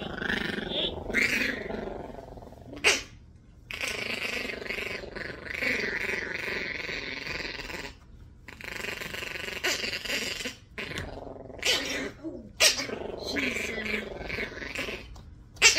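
Yorkie Biewer puppy growling in long, continuous stretches while being combed, objecting to the grooming. A few sharp clicks cut through it.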